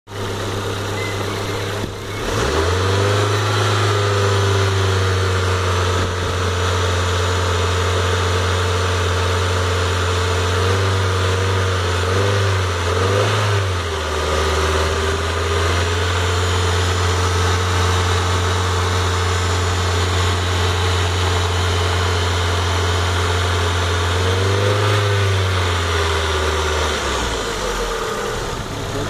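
Ford Zetec-E 1.8 16v DOHC inline-four running under the open bonnet. The revs rise about two seconds in and are held up, ease down a little midway, rise briefly again near the end and then drop back toward idle.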